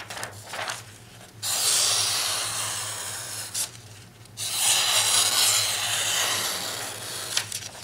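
A sheet of paper being sliced by the O1 steel blade of an Adventure Sworn Huntsman knife in two long slicing strokes, the first about two seconds and the second about three. The blade slices through without trouble, an edge test after field dressing a deer.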